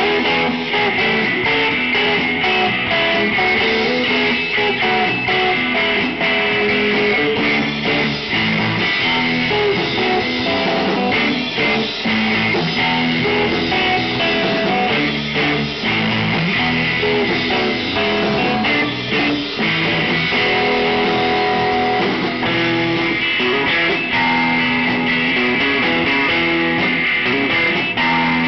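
Live band playing an instrumental passage: two electric guitars over drums and bass guitar, amplified in a small room, with no singing.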